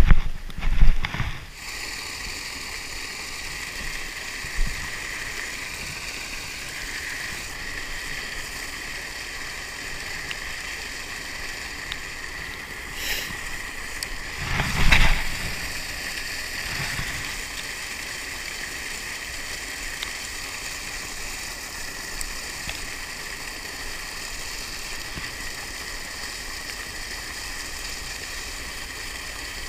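Steady hiss of rain falling on the water and on a rain jacket. Handling knocks come in the first second or so, and a single louder thump about fifteen seconds in.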